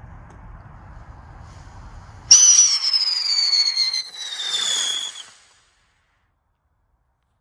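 Weco Twister firework going off: after a low rumble, it ignites suddenly about two seconds in with a loud whistle that glides steadily down in pitch over a hissing burn. It breaks off briefly partway through and stops abruptly about three seconds later.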